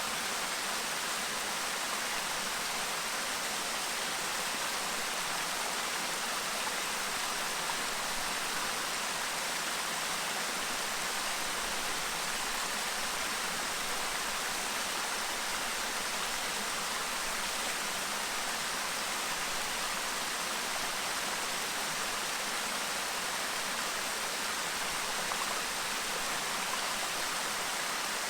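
Clear stream babbling, a steady even rush of flowing water.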